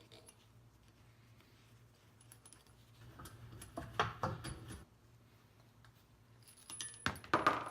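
Light metallic clinks and scrapes from tools and metal parts of a semi-hermetic compressor being handled as its cover is pried off, in a cluster about three to five seconds in and again near the end.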